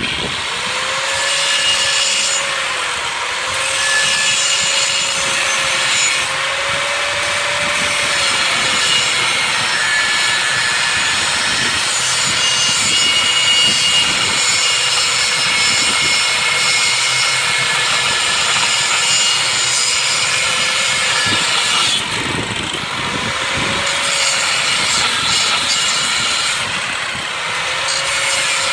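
Abrasive cut-off wheel cutting steel: a motor whine that sags under load and picks back up several times over a continuous gritty hiss.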